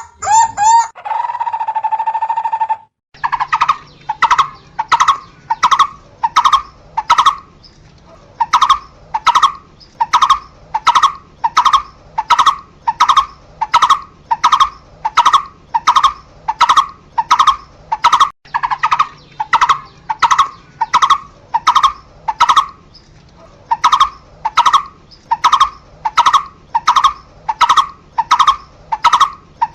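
Barbet calling: a single note repeated about twice a second in long series broken by brief pauses. In the first three seconds there is a different sound, a quick run of notes and then a held tone that cuts off.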